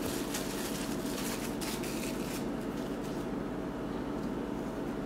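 Plastic wrapping crinkling in short bursts as leftover gum paste is wrapped up to keep it from drying. The crinkling stops a little over two seconds in, leaving a steady room hum.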